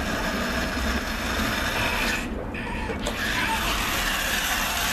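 Battery-powered toy tow truck's small motor and plastic gears whirring and grinding as it drives over paving stones, easing off briefly about two seconds in.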